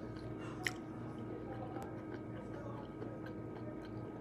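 Faint clicks and mouth sounds of a man quietly chewing nuts, with one sharper click about two-thirds of a second in, over a steady low hum.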